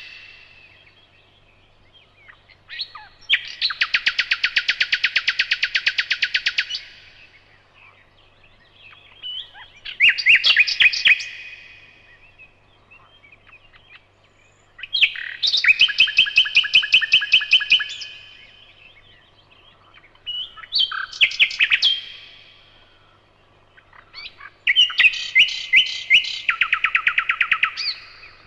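Nightingale singing: five separate phrases of fast, rapidly repeated notes and trills, each lasting one to three seconds, with pauses of a few seconds between them.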